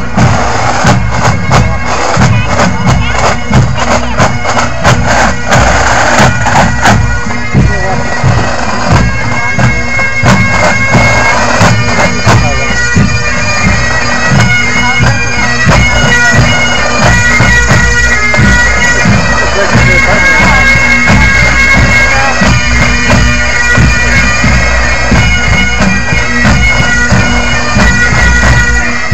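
A pipe band playing: many Highland bagpipes sounding their steady drones and chanter tune together, over a regular drum beat from snare and bass drums.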